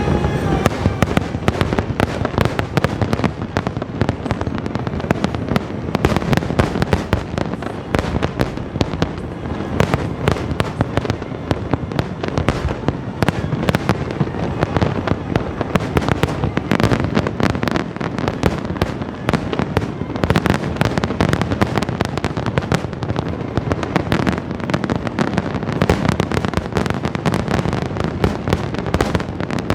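Aerial fireworks shells bursting in a dense, continuous barrage, several sharp bangs a second with no break.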